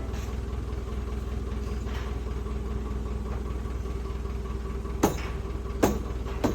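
Engine running steadily, with three sharp knocks about five, six and six and a half seconds in.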